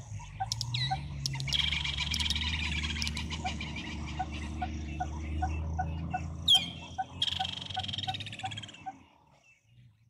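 Birds calling: two stretches of rapid trilling chirps and a couple of sharp downward whistles, over an even ticking call two or three times a second and a low hum. The sound fades out near the end.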